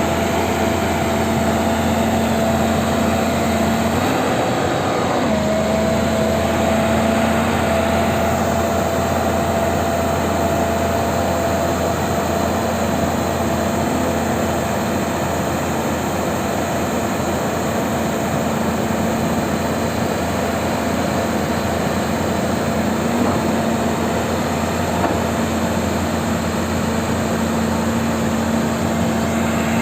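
Excavator engine running steadily under work, its pitch dipping briefly about four to five seconds in before settling back.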